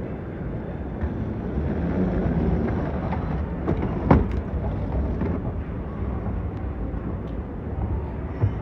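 Steady low rumble of a running escalator and the airport terminal hall around it. A sharp knock about four seconds in is the loudest sound, with a few lighter clicks.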